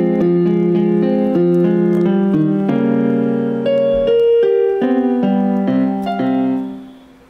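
Yamaha PSR-E263 portable keyboard sounding in a piano voice, playing a melody over changing chords; the music fades out near the end.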